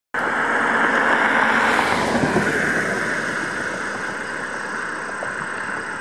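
A road vehicle passing: a steady rush of tyre and road noise, loudest in the first two or three seconds and then slowly fading away.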